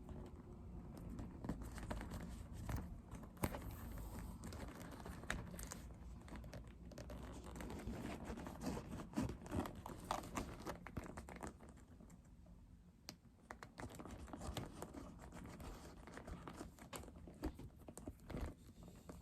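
Faint, irregular small clicks, taps and crinkling as hands work on a leather bag and its stubborn stitching, with thread catching.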